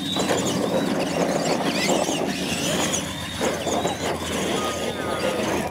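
Radio-controlled monster trucks racing side by side down a paved straight: their electric motors and gears whine, rising and falling in pitch, over the gritty crackle of tyres on the pavement. The sound starts suddenly and drops off near the end as the run finishes.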